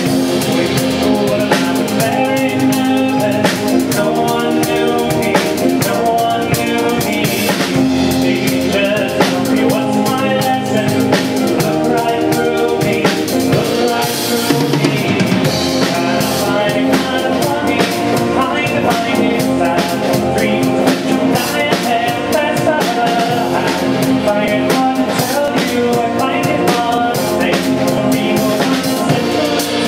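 Live band playing: a drum kit with snare, bass drum and cymbals keeps a steady beat under strummed guitars.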